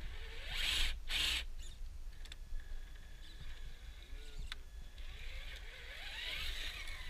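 Small electric motor and drivetrain of a 1/10-scale RC rock crawler whining as the throttle is worked up and down while it crawls over boulders. There are two short scrabbling bursts about a second in and a few sharp clicks.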